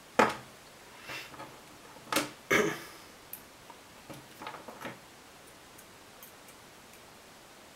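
A handful of sharp clicks and light taps, the loudest a pair about two seconds in, then a few fainter ticks: multimeter test probes and leads being handled and touched to a resistor.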